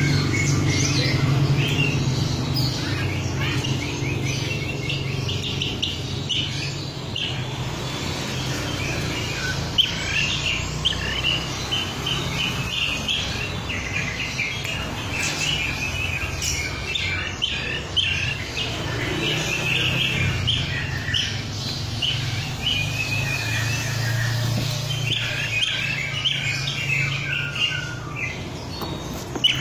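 A bee-eater (kirik-kirik) giving quick, repeated high chirps, over a steady low hum.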